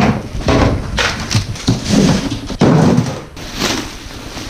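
Cardboard carton scraping and plastic wrap rustling as a boxed propane torpedo heater is pulled out, with a sharp knock about two and a half seconds in.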